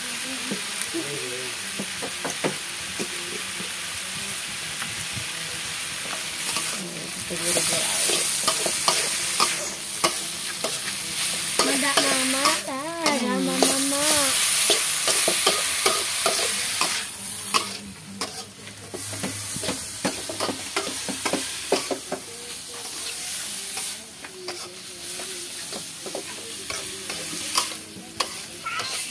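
Metal spatula stirring and scraping sliced vegetables in a wok while they sizzle, with repeated clicks of the spatula against the pan. The sizzling gets louder about seven seconds in and eases off again after about seventeen seconds.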